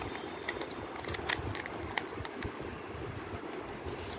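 Scattered light clicks and taps from a plastic flip phone being handled, over a steady low background hum.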